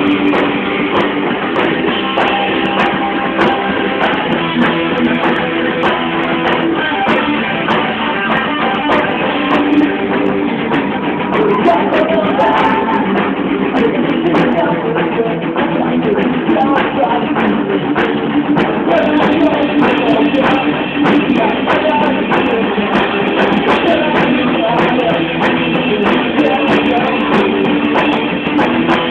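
Live rock band playing: electric guitars and drum kit, with some singing, recorded loud and muffled with little treble.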